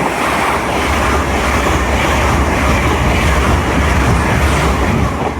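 Hitachi Class 800 Azuma bi-mode train passing through the station at speed: a loud, steady rush of wheels and air with a low hum underneath.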